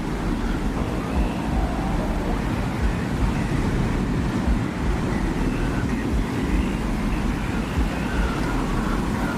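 Desert-wind ambience made for a soundscape: a steady, heavy low rumble of wind with faint airy wisps drifting in and out above it.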